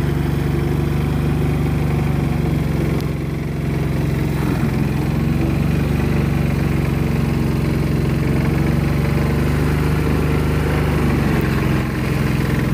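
A motor running steadily with an even, low drone.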